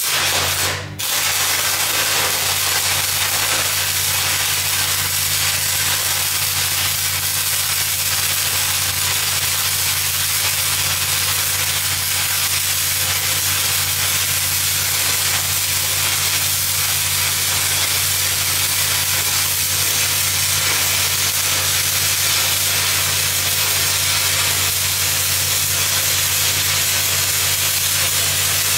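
Stick-welding arc with a 5/32 cellulose electrode (6010/8010 type) on a 4-inch pipe, burning with a steady crackling sizzle as a downhill pass is run. The arc is struck at the start, breaks briefly about a second in, then burns continuously. The engine-driven welder hums low and steady underneath.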